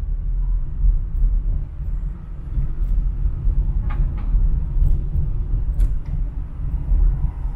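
Car driving through city streets: a steady low road rumble, with a few short clicks or taps around the middle.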